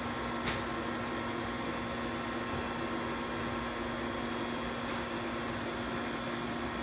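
Steady hum and whir of a powered-up Mazak VTC-16B vertical machining center, with a single short click about half a second in.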